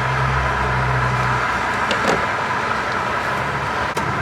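Steady background vehicle noise with a low hum that drops away about a second and a half in, and a sharp click near the end.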